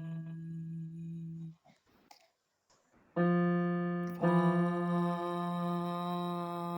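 Held electric-piano-like notes from a pitch-training app: a low note stops about a second and a half in, and after a short pause another low note starts, is struck again about a second later and is held.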